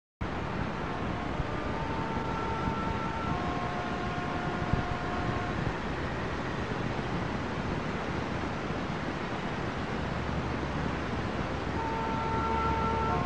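Background music of slow, held notes over a steady rushing hiss, growing louder near the end.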